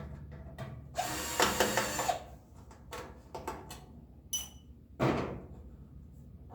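Toaster oven being handled during disassembly: a scraping, rattling stretch of about a second, then a few clicks, a short ringing clink about four seconds in and a knock about five seconds in.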